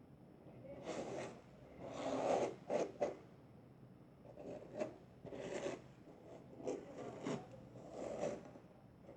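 A hairbrush pulled through tangled hair in a series of short, irregular strokes, each a brief rasping brush sound.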